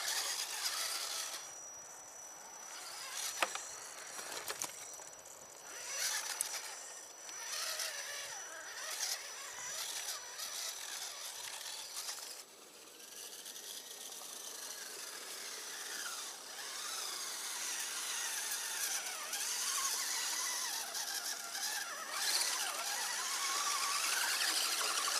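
Electric drive motor and gears of an Axial SCX10 RC crawler whining, the pitch rising and falling as it is throttled up and down over tree roots.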